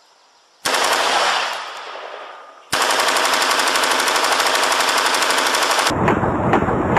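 AR-15 carbine with a muzzle brake firing on full automatic. A loud blast about half a second in dies away over two seconds. Then comes a continuous, very rapid burst of about three seconds. Near the end the sound turns deeper, with slower pulses about twice a second.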